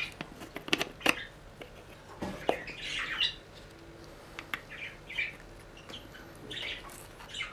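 Small pet birds chirping and squawking in short, scattered calls, with a few sharp clicks from a small spoon scooping powder out of a plastic bottle into a ceramic bowl.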